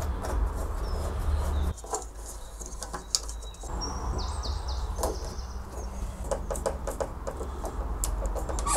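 Scattered small clicks and taps from hands and a screwdriver working brass pipe fittings on a plastic water barrel, over a low steady hum, with a bird chirping briefly about three and a half seconds in.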